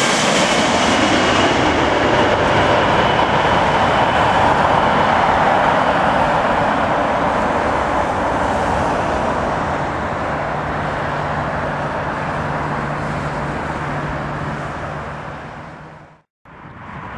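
Jet engines of a British Airways Boeing 747-400 passing low overhead on final approach: a loud rush with a high fan whine that slowly falls and fades as the airliner flies on to land. A steady low hum comes in during the second half, and the sound fades out near the end.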